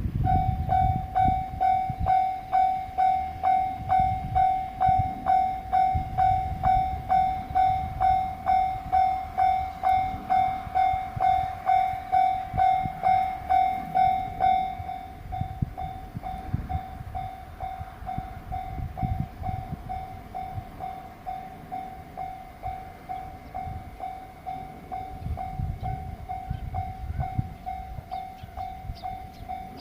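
Japanese level-crossing warning bell ringing in a steady repeated ding, about two strikes a second. About fifteen seconds in it drops to a softer ring and keeps going, over a low rumble.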